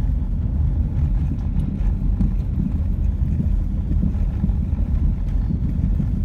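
Steady low rumble of a car driving along a country road, heard from inside the cabin: engine and tyre noise.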